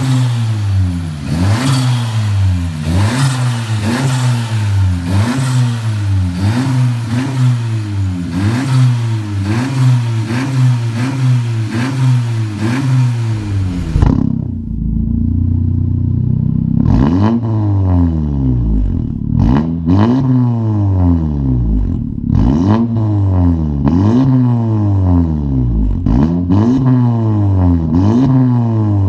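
Honda Civic RS Turbo's four-cylinder engine revved again and again while parked, through an aftermarket exhaust, each blip rising and falling back. About halfway through, the sound turns duller, as heard from inside the cabin, and the blips come more slowly, roughly one every two seconds.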